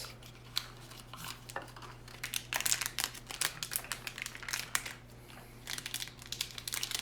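Crinkling and rustling of packaging as a blind-box pin is unwrapped, in irregular clusters of small crackles, the busiest about two and a half seconds in and again near the end.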